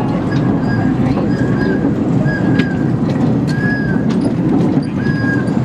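Quarter-size miniature train rolling along its track: a steady rumble, with repeated short squeals of steel wheels on the rails and scattered sharp clicks.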